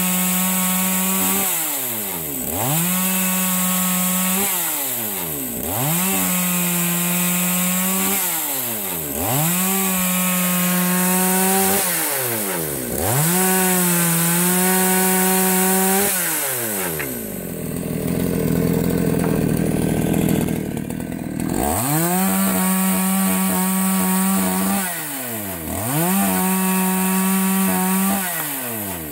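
Bench-mounted two-stroke chainsaw at full throttle cutting branches. Its pitch drops each time the chain bites into a branch and climbs back once the piece falls off, about every three to four seconds. The engine tone gives way to a noisier stretch for a few seconds about two-thirds through.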